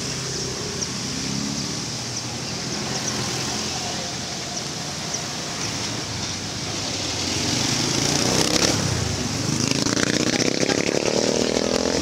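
Street traffic noise, with a motorbike engine running up in pitch over the last couple of seconds. A few short, high chirps sound in the first half.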